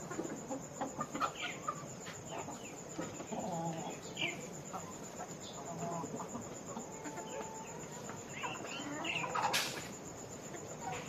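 A flock of farm chickens clucking and calling, many short overlapping calls, with a steady high-pitched whine underneath. A brief loud rushing burst cuts across about nine and a half seconds in.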